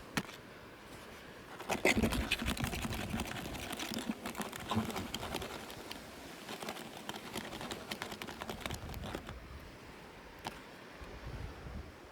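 Hands unwrapping and handling small plastic toy packaging: a run of quick crinkles and light clicks, busiest from about two seconds in until near the end, with a single click about ten seconds in.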